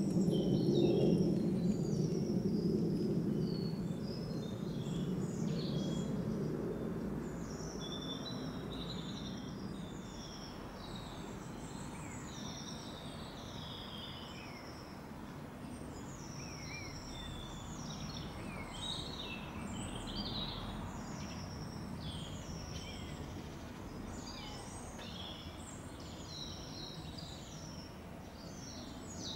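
Several small birds singing and chirping in quick, overlapping phrases, over a low background rumble that is loudest in the first few seconds and then settles to a faint steady hum.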